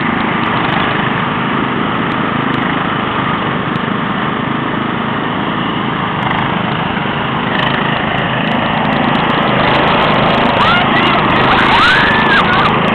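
Riding lawn tractor engines running close by, more than one at once, with a steady dense engine noise that grows a little louder near the end. A few short rising-and-falling calls sound over the engines near the end.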